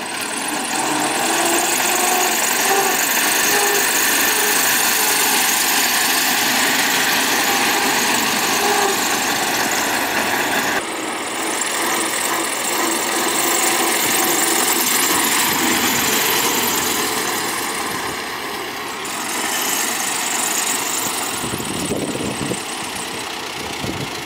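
1923 Dodge Touring's four-cylinder L-head engine running at low speed as the open car drives slowly past and toward the camera, mixed with a steady rushing noise. The sound shifts abruptly about eleven seconds in.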